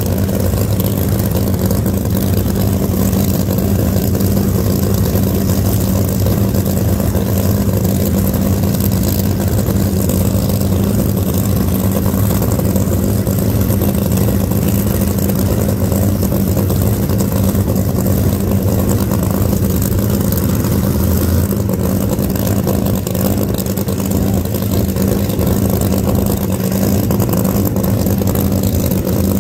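Drag racing car's engine idling loudly and steadily, a deep even note that neither revs up nor drops away.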